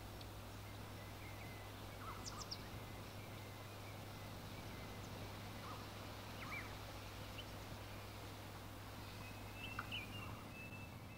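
Faint outdoor ambience: a steady hiss and low hum, with short bird chirps scattered through it, a small cluster of them near the end.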